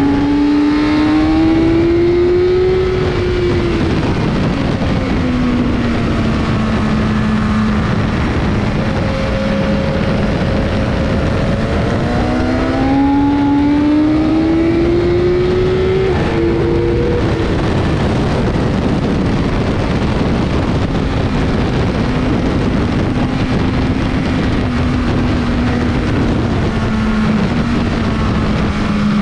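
BMW S 1000 RR inline-four at track speed, heard from on board over heavy wind rush. The engine note climbs under acceleration over the first few seconds, falls away and holds steady, climbs again around the middle, drops at a gear change and then runs fairly evenly.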